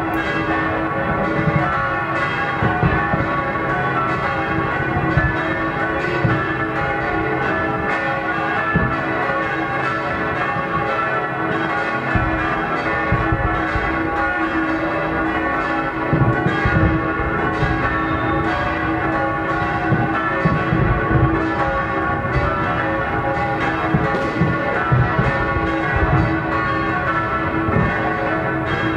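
Several church bells pealing together in a steady, continuous ringing, as for the New Year, with irregular low booms of fireworks underneath.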